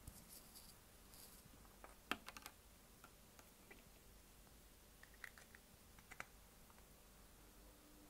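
Faint clicks of a USB cable's plug being handled and pushed into the port of a USB tester, over near silence: a small cluster of clicks about two seconds in, then single clicks around five and six seconds in.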